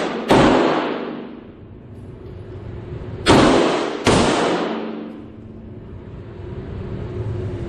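Three 9mm pistol shots from a Glock 34: one about a third of a second in, then two close together about three seconds later. Each shot rings on with a long echo off the walls of the enclosed indoor range.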